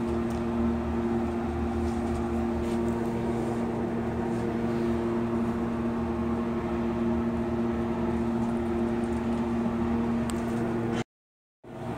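Steady mechanical hum with a low rumble and two steady tones, cutting off for a moment about eleven seconds in.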